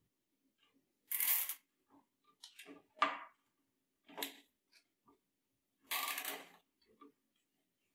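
Nylon zip tie being threaded and pulled tight around a plastic power strip: several short zipping pulls, the longest about six seconds in.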